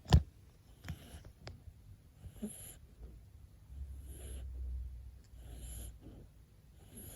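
Munchkin kitten snoring in its sleep, a slow rasping breath about every second and a half. This is normal snoring in a healthy kitten, not a blocked nose. A single sharp knock sounds just after the start.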